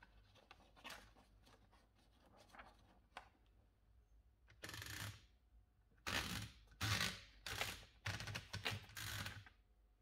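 A sheet of paper being fed into an Olivetti M20 typewriter: light paper rustling, then, from about halfway through, several short bursts of ratcheting clicks as the platen knob is turned to roll the paper in.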